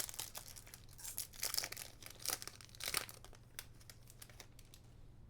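A foil trading-card booster pack crinkling and tearing in a few short rustling bursts over the first three seconds, then only light clicks of cards being handled.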